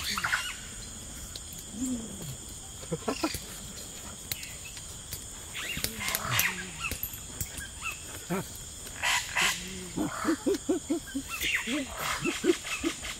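Short grunting and humming vocal sounds from people eating, with a quick run of them toward the end, amid scattered clicks as hands tear roasted goat meat. A steady high-pitched insect drone runs underneath.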